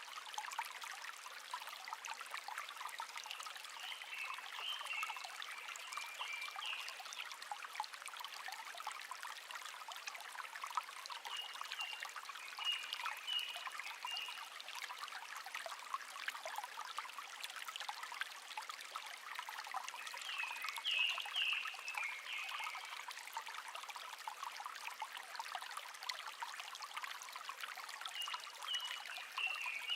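A small stream trickling steadily, with a songbird singing a short twittering phrase four times, about every eight seconds.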